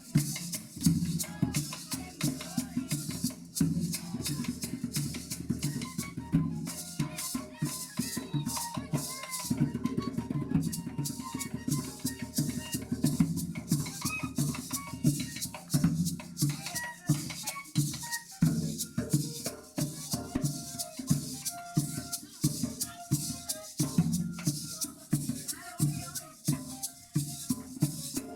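Colombian gaita ensemble playing: the gaita flutes carry a melody over steady maraca shaking and hand-drum beats.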